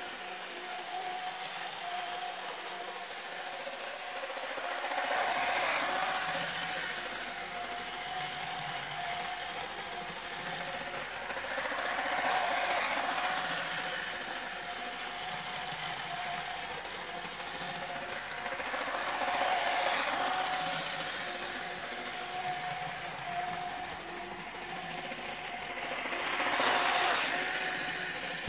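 Hornby OO gauge Pacer twin-car railbus model running on its track, its small electric motor giving a steady whine over the rattle of wheels on the rails. The sound swells about every seven seconds as the train comes round the loop past the microphone.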